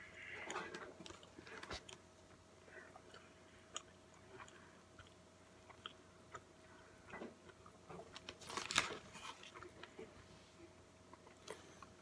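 A person chewing and biting into a Burger King Rodeo King burger with crispy onion rings: soft wet chewing with small scattered crunches and mouth clicks, and a louder crackle about nine seconds in.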